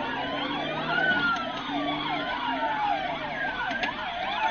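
Police car sirens: a fast warbling yelp at about three cycles a second together with a slower wail that rises and falls over a few seconds, heard from inside a following car.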